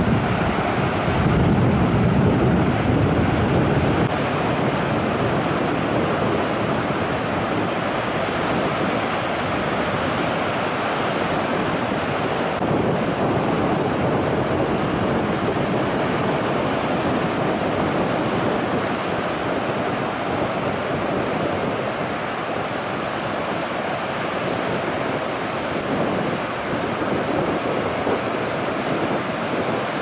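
Rough surf breaking steadily on the shore, with wind rushing across the microphone, the low rumble heaviest in the first few seconds.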